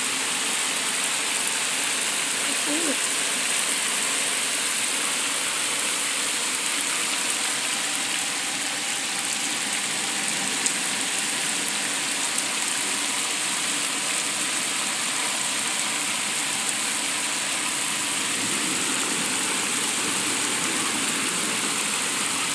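Torrential rain falling steadily, with floodwater rushing along the street, making an even, unbroken hiss of water.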